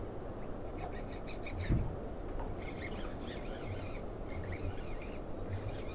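Fishing reel being cranked to wind in a hooked fish, a soft rasping with a few clicks, over a low rumble.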